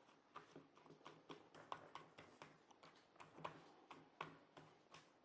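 Faint, irregular soft taps and clicks, about three or four a second, as fingers press sablé dough into a silicone mould to shape it.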